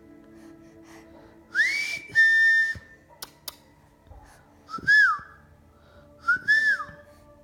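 A series of whistled notes: a rising whistle held steady, then a few short rise-and-fall whistles, about five notes in three groups.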